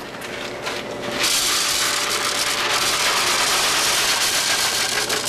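Crushed dry noodles poured from a bag into a blender jar, a steady crackling hiss that starts about a second in.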